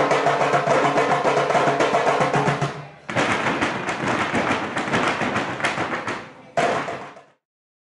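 Music led by drums and percussion, densely struck, in sections that break off sharply. It stops suddenly about seven seconds in.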